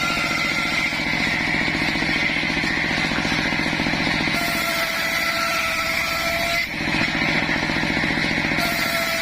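Engine of a homemade circular-saw sawmill running steadily. A thin high whine comes in about four and a half seconds in, breaks off with a brief dip at about seven seconds, and returns near the end.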